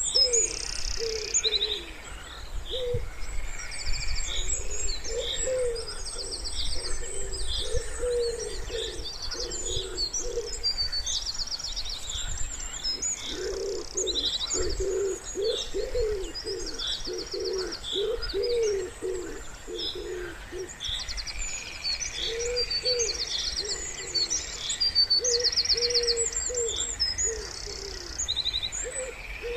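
Wood pigeon cooing in repeated low phrases, densest around the middle, over small songbirds chirping and trilling high and fast throughout.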